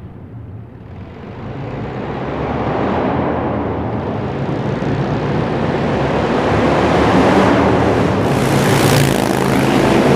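Motorcycle engine running as the bike rides up close. It grows louder over the first few seconds, and a rush of noise peaks about nine seconds in.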